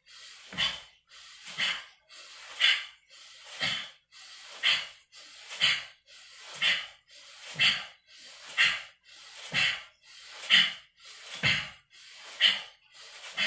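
A man's forceful, rhythmic breathing during a kung fu punching breath drill: a sharp breath about once a second, each timed with a punch.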